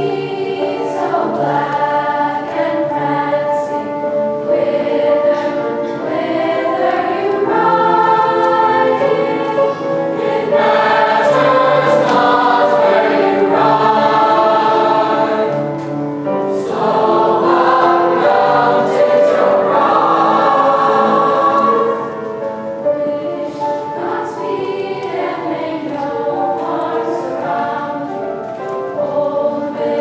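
Middle-school mixed choir of boys and girls singing in sustained chords with piano accompaniment. The singing swells louder through the middle and grows softer over the last several seconds.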